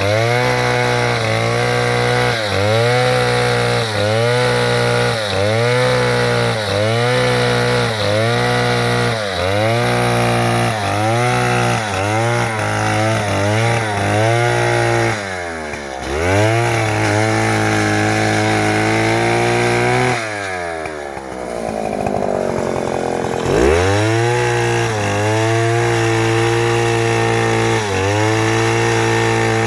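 Chainsaw running and cutting wood, its pitch sagging briefly under load about every second and a half. Around the middle the engine slows twice, the second time dropping low for a few seconds before rising back to speed.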